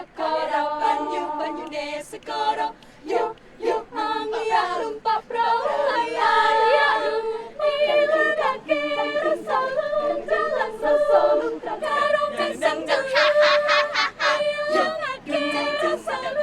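A student choir singing an old folk song a cappella in rehearsal, phrase after phrase with short breaks between them.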